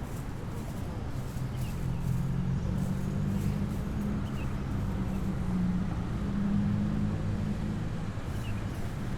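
City street traffic: vehicle engines running in a continuous low drone, which swells a little about two seconds in as vehicles pass. A few faint short chirps sound above it.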